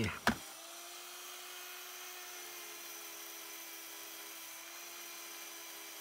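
A short knock, then a power finger file (narrow-belt sander) running with a steady whine as it sands rust off a steel seat-belt anchor fitting.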